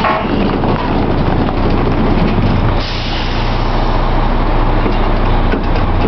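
Drilling rig floor machinery running loudly: a steady engine drone under a dense mechanical din, while drill pipe is handled and racked. A higher rushing noise joins about three seconds in.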